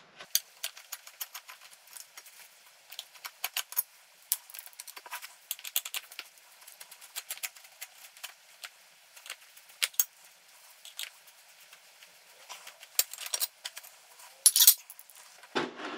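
Irregular sharp metal clicks and clinks, several a second, of an Allen key working the screws of a motorcycle's chrome side cover, with a louder scrape near the end as the cover comes free.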